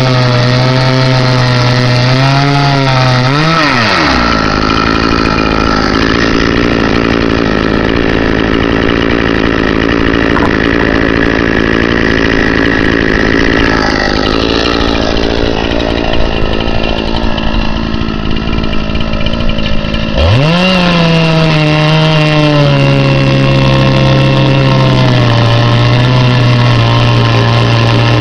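Chainsaw on a chainsaw mill idling, then revved up about four seconds in and held at full throttle while ripping a board through the log, before dropping back to idle about twenty seconds in.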